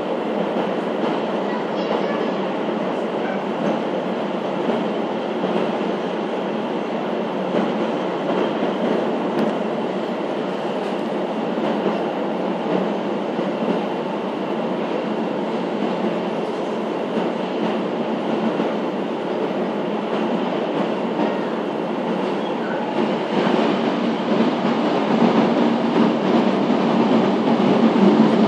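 Passenger train running, heard from inside the carriage: a steady rumble of wheels on the rails that grows louder over the last few seconds.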